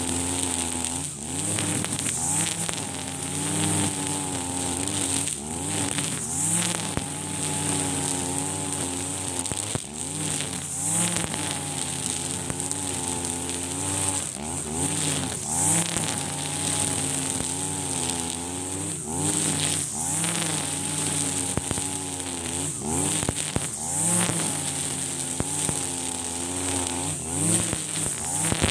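Husqvarna 542RBS 42cc two-stroke backpack brush cutter running hard with its 2.2 mm nylon line chewing through thick, tall grass. The engine pitch sags and recovers every few seconds as the line bogs in the dense grass, over a constant high whine from the spinning line.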